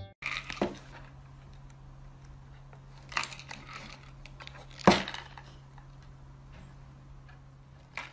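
A cat pawing at and nosing into a small paper box, giving soft, scattered knocks and rustles, the loudest about five seconds in, over a steady low hum.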